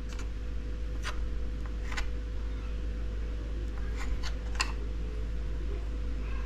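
Food-prep handling in a kitchen: about six short, light clicks and scrapes, three spread over the first two seconds and a quick cluster of three around four seconds in, over a steady low hum.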